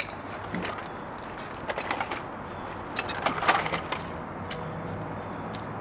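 Hand tools clinking and rattling as they are dug out of a soft tool bag: a few scattered metallic clinks, busiest about two seconds and three and a half seconds in. Under them runs a steady high insect chirring.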